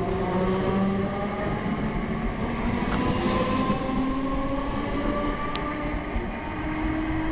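Merseyrail electric multiple unit pulling out along the platform, its traction motors whining and rising slowly in pitch as it gathers speed, over the running noise of the train on the track.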